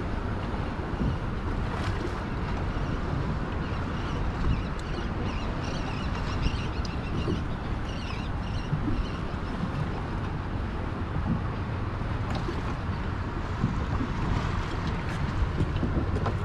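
Wind buffeting the microphone and choppy water lapping against the hull of a small boat sitting at rest. Faint high chirping comes through in the middle.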